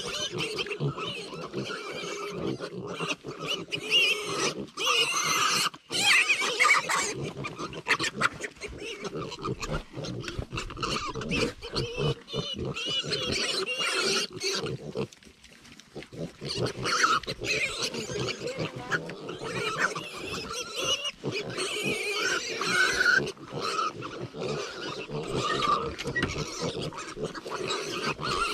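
Farm animals calling continuously, a dense, uneven run of animal noises with a brief lull about halfway through.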